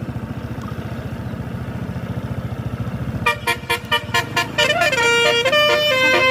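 A bus engine runs, growing louder, then a telolet horn sounds: a quick run of short toots about three seconds in, followed by a multi-tone melody of held notes.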